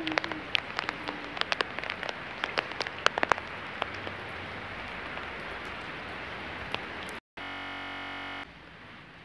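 Rain falling steadily, with many loud individual drops striking close by in the first few seconds. About seven seconds in, the sound drops out for an instant and a flat, steady noise holds for about a second, then the rain returns fainter.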